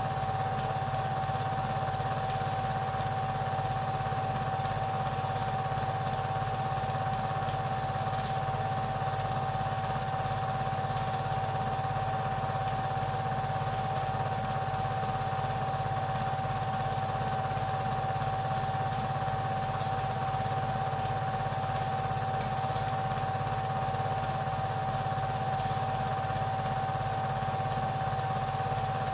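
Super 8 film projector running: a steady mechanical whirr with a fast, even clatter and a constant whine.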